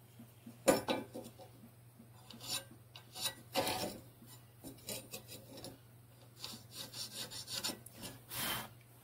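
Soapstone scraping in short strokes across a steel lawnmower blade as the knife outline is marked, with steel pieces sliding and rubbing on a steel worktable. There is a quick run of strokes in the second half and a louder scrape near the end.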